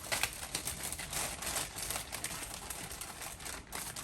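Quick irregular run of light clicks and crinkling as sandwich ingredients and their wrapping are handled.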